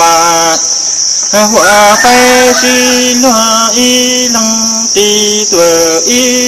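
Hmong kwv txhiaj sung poetry: a man's voice holding long, level notes that step from pitch to pitch, with a brief pause about a second in. A steady high-pitched insect drone runs beneath.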